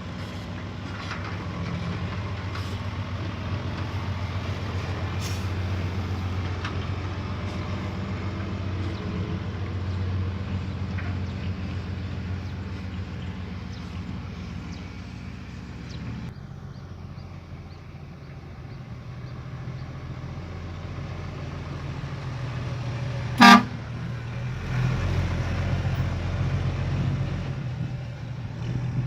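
Heavy diesel earthmoving machinery running steadily, its engine note shifting about halfway through. About 23 seconds in comes one short, loud horn toot, the loudest sound.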